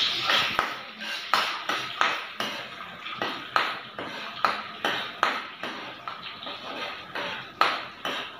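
A metal ladle scraping and clinking against a metal kadai while chana dal is stirred as it fries in oil, at about two to three strokes a second, each stroke with a short ringing ping.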